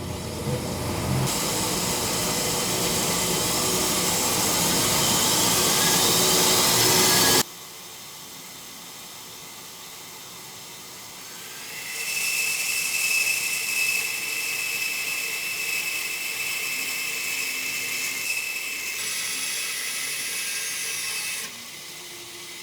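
Milling machine cutting metal with an end mill, in separate cuts: a hiss that rises for about seven seconds and stops abruptly, then from about twelve seconds a steady high whine over hiss until it drops away near the end.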